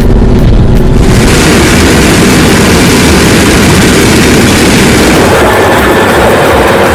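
A large machine running loudly, a steady low rumble under a dense rushing noise that fills out sharply about a second in.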